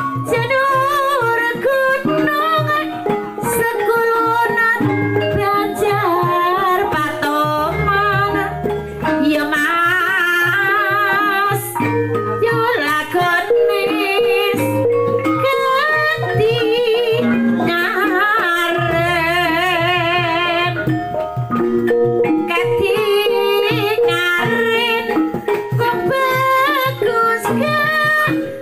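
Javanese gamelan playing a gending: bronze bonang pot gongs and kendang drum with a wavering sung melody over them. A large hanging gong's deep note rings out twice, about eight and nineteen seconds in.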